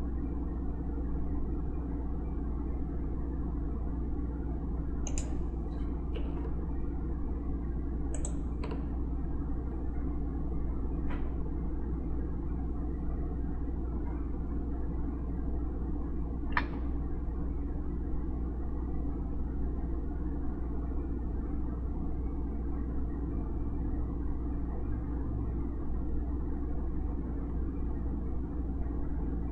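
Steady low background hum, with a handful of short computer mouse clicks scattered through it.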